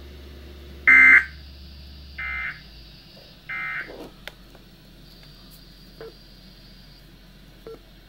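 Three short warbling data bursts from a weather radio's speaker, about 1.3 s apart: the SAME digital end-of-message code that closes the weather radio's required weekly test. The first burst is the loudest, and a few faint clicks follow.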